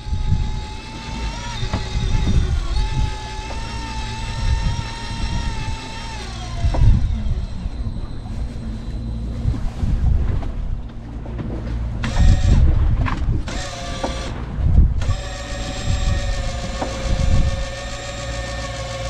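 Boat engine running with a steady whine over a low rumble. Its pitch falls about seven seconds in, and after a few seconds of broken, uneven sound it settles at a steady, lower pitch.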